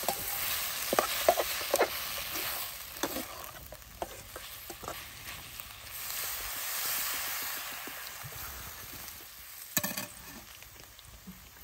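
Chicken curry sizzling and frying in a pan while it is stirred, with short scrapes and clinks of the stirring spoon against the pan; a sharper clatter a little before the end.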